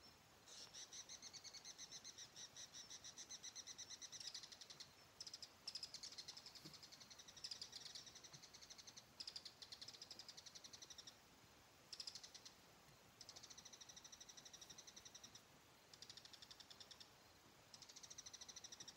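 Faint insect trills: several long runs of rapid, even pulses, high-pitched, with short breaks between them.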